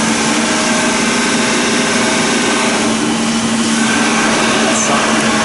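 A motor-driven machine running steadily: a constant hum over a dense hiss, with no change in speed.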